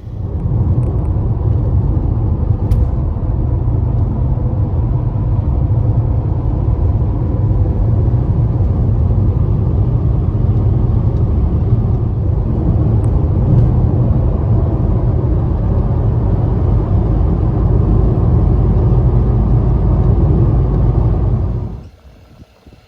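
Mercedes-Benz W124 300E-24 driving at speed: a loud, steady, low rumble of engine and road noise that cuts in suddenly and stops abruptly about 22 seconds in.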